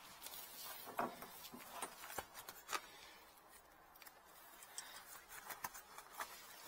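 Faint scattered metal clicks and light rubbing as tongue-and-groove pliers grip and work a pipe fitting on an electric water heater's plumbing.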